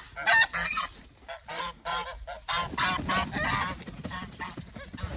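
Geese honking in a rapid series of short, overlapping calls, with a low rumble underneath from about halfway.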